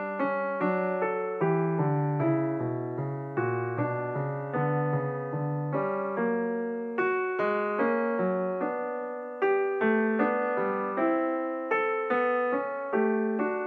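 Background piano music: single notes and chords struck about twice a second, each ringing and dying away.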